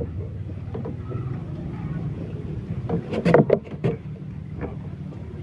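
A steady low mechanical hum, with a short cluster of clicks and rustles about three seconds in.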